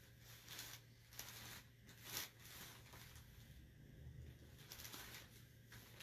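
Faint rustling and scraping of a sheet of paper being slid and turned around on a brown-paper-covered tabletop, in several short strokes, over a low steady hum.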